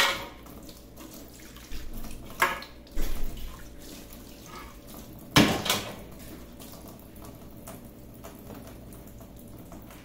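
Kitchen tap running into a stainless steel sink while a clear plastic fridge door shelf is rinsed under the stream. A few sharp knocks come as the shelf is handled: one at the start, one about two and a half seconds in, and the loudest, a double knock, about five and a half seconds in.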